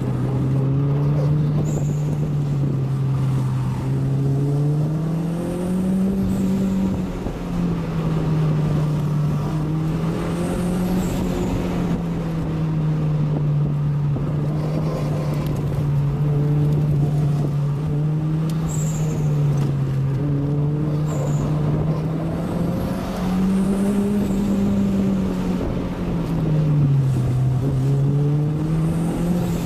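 Turbocharged 3S-GTE four-cylinder engine of a 1993 Toyota MR2 MKII heard from inside the cabin. It holds a steady drone whose pitch rises and falls a few times, highest about six seconds in and again near the end, over constant road and tyre noise.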